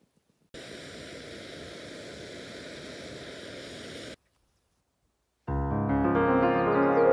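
Steady hiss of a backpacking canister stove burning under a pot, cutting off abruptly after about four seconds. After a short silence, piano music starts and is the loudest sound.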